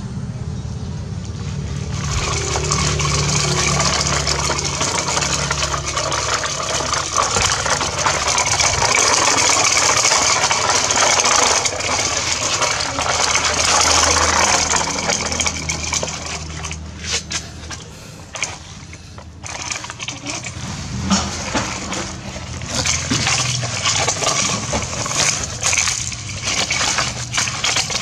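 Plastic toy construction trucks scraping and crunching over sand and gravel, with a low steady hum underneath for the first half or so. In the later part come many short clicks and ticks of grit and plastic as a toy loader's plastic bucket pushes into the sand.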